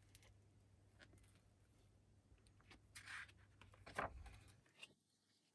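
Near silence with the faint handling of a hardcover picture book as it is opened: a soft paper rustle about three seconds in and a light knock of the cover about a second later.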